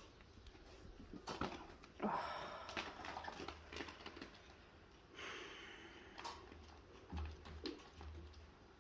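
Faint scratching and rustling of a kitten's claws catching in a fabric curtain as it climbs. Scattered light clicks are joined by two longer rustles, about two and five seconds in.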